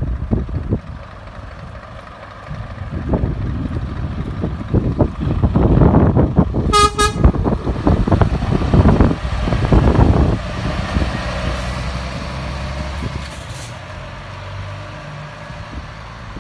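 Scania R500 truck pulling out and driving past, its engine growing louder as it passes and then fading as it drives away. Two short horn toots about seven seconds in.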